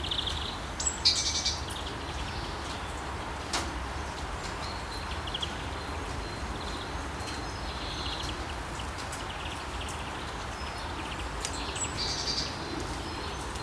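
Light rain falling steadily with a light wind, and small birds chirping in short bursts a few times over it, loudest about a second in and near the end. A single sharp click a few seconds in.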